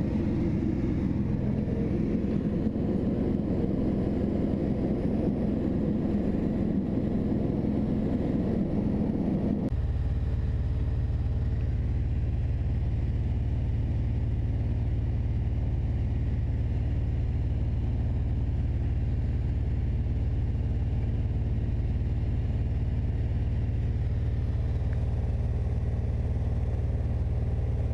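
Mooney single-engine light aircraft's piston engine and propeller running steadily in cruise flight. About ten seconds in the sound changes abruptly to a lower, steadier drone as heard inside the cabin.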